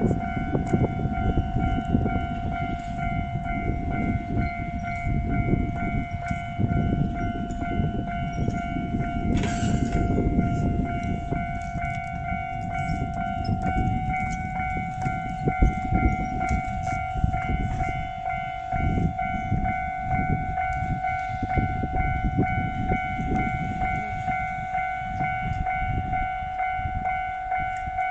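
Japanese level-crossing alarm ringing on one steady tone while a JR West Sanyo Line train passes, with a continuous low rumble and repeated knocking of wheels over the rail joints.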